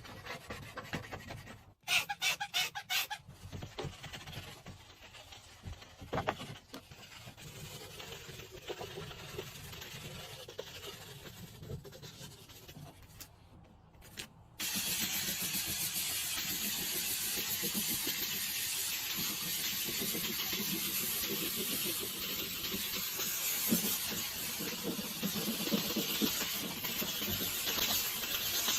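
A few sharp clicks early, then quieter scattered cleaning noise, then a loud steady hiss of a cleaning spray jet that starts abruptly about halfway through and keeps going.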